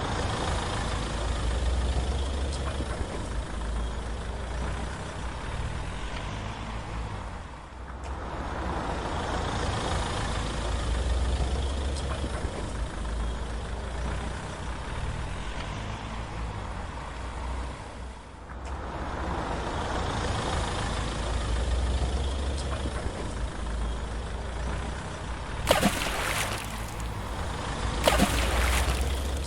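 Toy vehicle running with a low motor or engine rumble that swells and fades in three long cycles, with two sharp clicks near the end.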